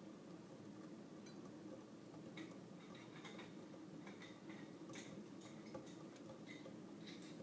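Faint, irregular light clicks over a steady low hum of room tone.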